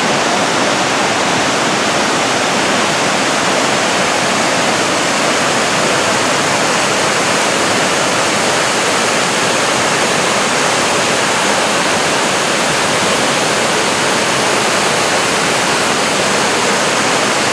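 Rainbow Falls on the Horsepasture River: the steady rushing of a large waterfall close by, an even, unbroken noise.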